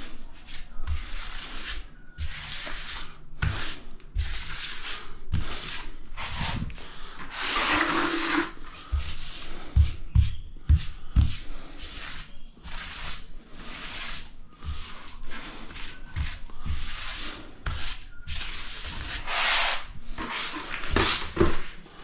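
Repeated rubbing and scraping strokes of a tool working cement tile grout, each stroke lasting a second or less, with soft knocks scattered between them.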